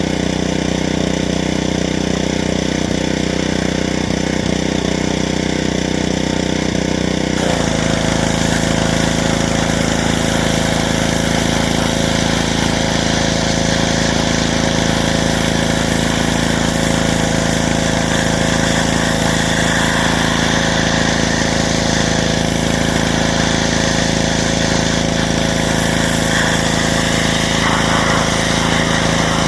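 Pressure washer running steadily. About seven seconds in, the spray starts and a loud hiss of the water jet joins the motor.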